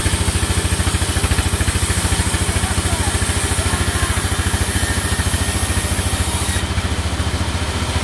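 Sawmill drive engine running steadily with a rapid, even low beat, turning the saw's belt and pulley.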